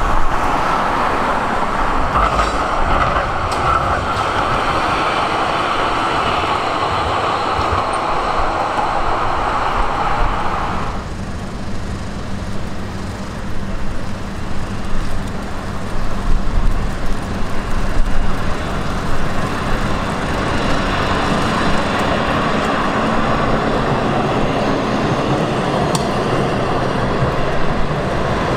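Electric street trams running along a city road among passing car traffic. The sound changes abruptly about eleven seconds in.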